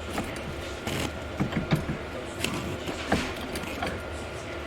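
Irregular metallic clicks and clunks of hand tools and suspension parts being worked while the rear CV axle is freed from the knuckle, over a steady low hum.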